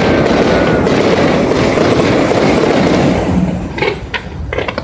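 Aerial firework shells bursting into crackling stars: a dense, continuous crackle that dies down about three seconds in, followed by a few separate sharp cracks near the end.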